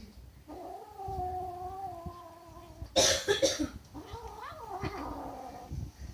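Kitten guarding its food with a long, drawn-out growling yowl, then a sharp hiss about three seconds in, then another wavering yowl that rises and falls in pitch.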